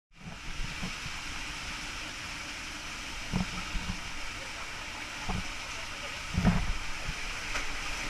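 Water rushing down an enclosed water-slide tube, a steady hiss, with a few dull thumps, the loudest about six and a half seconds in.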